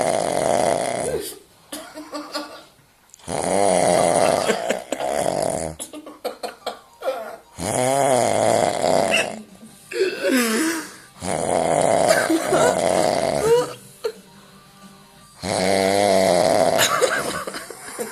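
A man snoring heavily in deep sleep: loud snores of about two seconds each, coming roughly every four seconds, with softer breathing between them.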